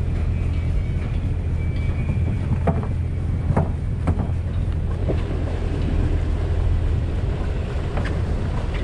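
Fishing boat's engine running steadily under way, a low drone, with wind buffeting the microphone and a few short knocks scattered through.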